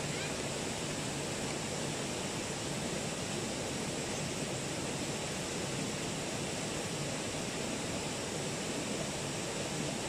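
Steady rushing of a shallow stream tumbling over rocks.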